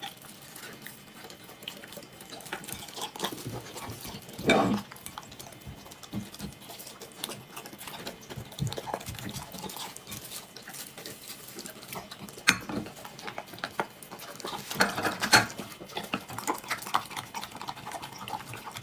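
Golden retriever eating at close range: wet chewing, smacking and licking, with small clicks against a ceramic bowl and one louder knock about four and a half seconds in. Near the end it laps from a small bowl of liquid.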